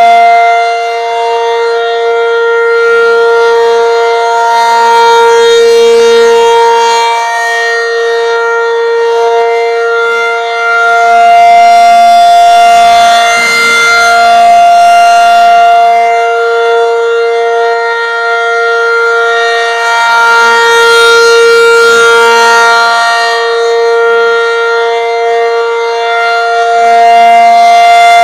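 Federal Signal 500-DH-TT outdoor warning siren sounding its steady alert signal: two held tones at a fixed pitch, loud, the volume swelling and fading slowly every several seconds. This is the 3-minute steady alert of the siren's test.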